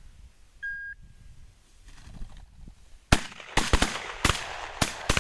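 A rapid string of about six shotgun shots, starting about three seconds in, some of them nearly overlapping, fired at a flushed pheasant.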